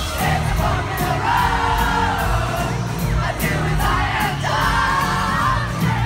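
Live pop concert heard from the audience: a woman's lead vocal singing a wavering melody over the band's steady beat, with crowd noise underneath, recorded on a phone.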